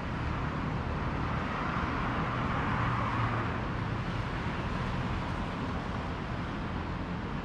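Steady road traffic, cars and motorbikes passing on a busy multi-lane road, swelling slightly a couple of seconds in.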